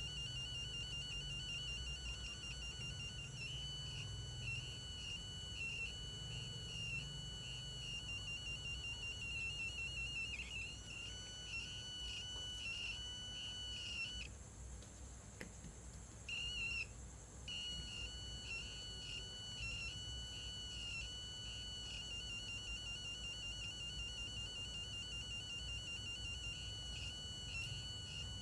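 Electronic buzzer in a blinking-LED circuit sounding one high, fixed-pitch tone that keeps switching on and off and warbles in rapid pulses. It drops out for about two seconds past the middle, then resumes.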